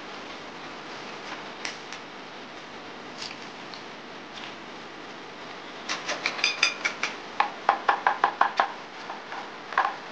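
Kitchen knife chopping bamboo shoots on a wooden chopping board: a quick run of sharp strikes and clinks starting about six seconds in, with a last chop near the end, over a steady hiss.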